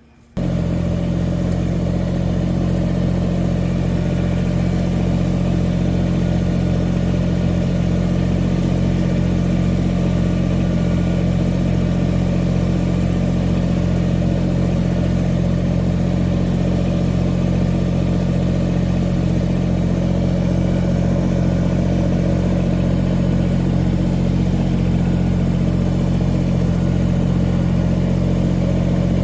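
Old Kubota 2350 compact tractor's diesel engine running steadily at an unchanging speed, starting abruptly right at the start.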